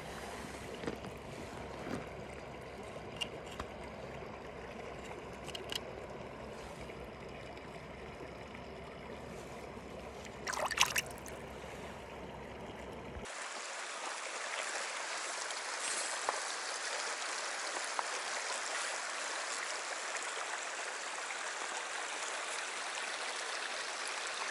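Shallow stream water running over stones close by, with a few small knocks and a brief louder noise about ten seconds in. Just past halfway it changes abruptly to a brighter, hissier rush of flowing river water.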